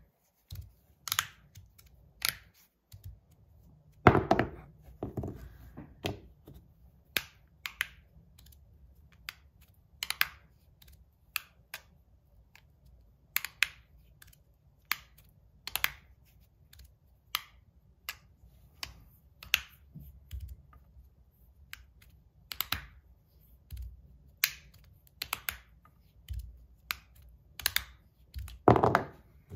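Magnetic fidget slider with Teflon plates being worked back and forth in the fingers, giving sharp clicks about once a second, irregularly spaced, as the plates snap to the ends of their travel. Two clicks, about four seconds in and near the end, are louder.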